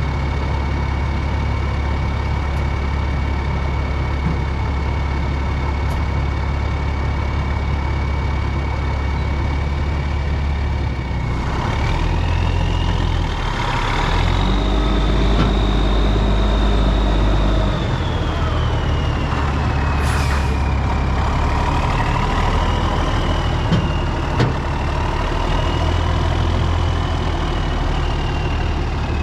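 Heavy engine running steadily with a whine. About twelve seconds in it revs up for several seconds, and the whine climbs and then wavers with engine speed. A short burst of air hiss comes a little later.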